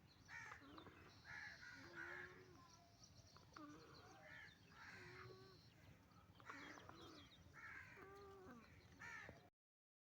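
Faint snoring of a sleeping chicken: short raspy croaks alternating with brief pitched squeaky notes, about one a second, cutting off abruptly near the end.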